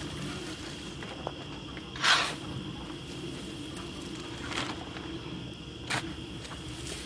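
Wood chips shovelled from a pile and tossed into a yard cart: a loud scraping rush about two seconds in, a lighter scoop a couple of seconds later, and a short knock near the end.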